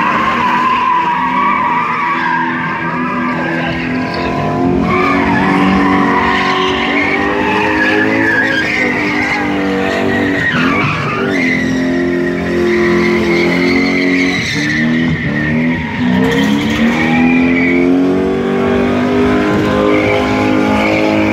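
BMW sedan drifting in donuts: the engine revs hard, its pitch rising and falling with the throttle, while the rear tyres squeal steadily against the asphalt.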